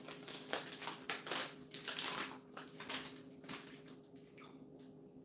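Plastic candy bag crinkling as a hand reaches in for a gummy, a run of irregular crackles that dies down after about three and a half seconds.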